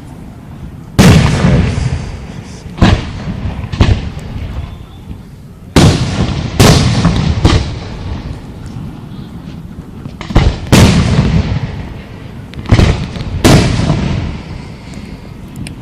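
Aerial fireworks shells bursting overhead: about ten sharp, loud booms, some in quick pairs, each dying away over a second or so before the next.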